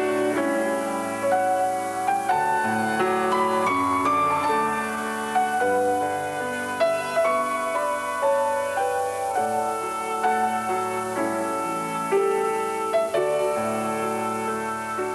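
Slow, gentle piano music: a melody of held notes over sustained chords.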